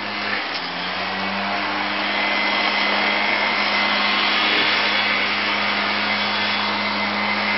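A steady mechanical drone, a hiss over a low hum, like a small motor running; its pitch lifts slightly and settles back about a second in.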